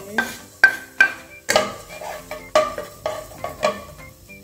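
Minced garlic scraped from a wooden chopping board into an aluminium pot, then stirred with a wooden spatula. About seven sharp knocks of wood against the metal pot, each followed by a brief ring from the pot.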